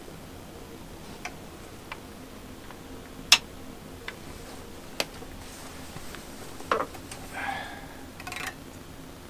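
Handling noises: scattered clicks and knocks as an electric guitar is picked up and the player settles onto a chair, the loudest a sharp click about three seconds in, over a faint steady hum.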